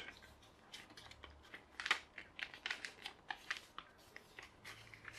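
A sheet of paper being folded and creased by hand, pressed flat against a book: a quiet, irregular scatter of short crisp rustles and crinkles.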